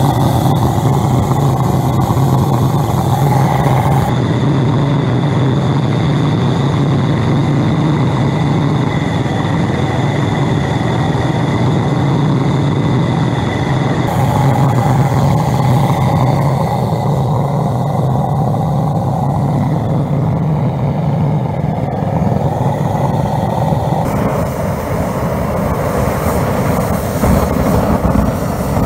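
Little Dragon high-velocity diesel burner firing into a small foundry: a loud, steady rushing noise over a low hum. The sound shifts abruptly a few times as the shot changes.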